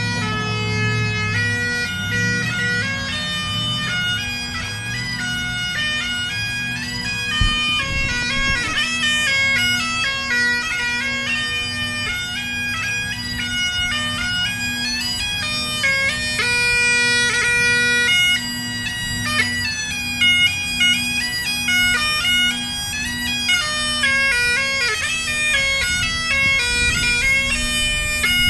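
Scottish bagpipes playing a melody over steady drones.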